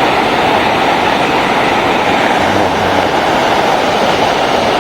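Waterfall rushing close to the microphone: a loud, steady noise of falling water.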